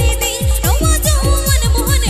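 Live Santali stage band music: a fast, steady beat of deep drum hits that drop in pitch, about four a second, under a wavering melody line.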